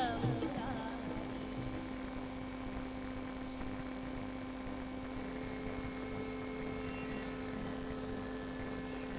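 A faint steady hum, with the last notes of the devotional song and its tabla dying away in the first second.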